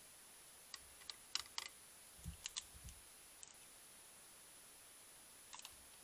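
Faint sharp clicks and light rattling of a hanging tube bird feeder as a badger mouths and tugs at it, followed by two soft low thuds, with a few more clicks near the end.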